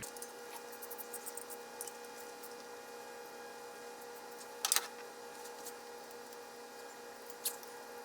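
Light metallic clicks and taps of a socket wrench working on the ignition coil bolts, with a louder clack about two thirds of the way through and a sharp tick near the end, over a steady hum.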